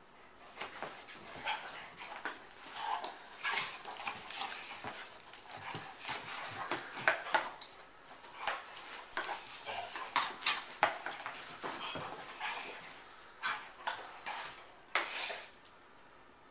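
A Weimaraner and a German Shorthaired Pointer play-fighting: irregular spells of growls and snapping jaws, dying away about a second before the end.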